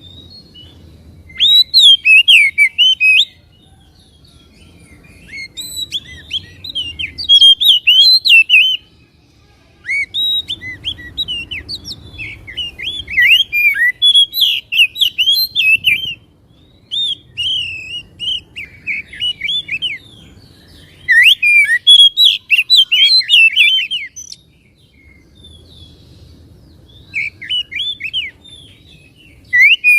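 Oriental magpie-robin song: loud phrases of rapid, varied chirps and whistles lasting a few seconds each, about six of them with short pauses in between.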